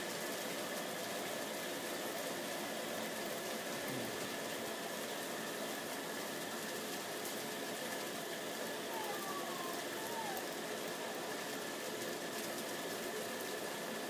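Heavy rain pouring down in a steady hiss, thick raindrops drumming on pavement and cars.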